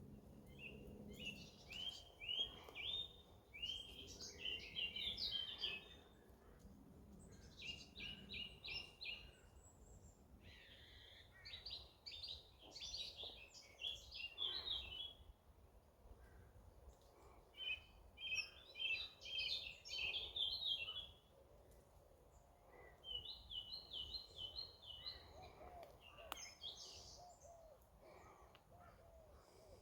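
A songbird singing: several short phrases of quick, repeated high notes, each lasting a few seconds, with pauses between them, over a faint steady outdoor background.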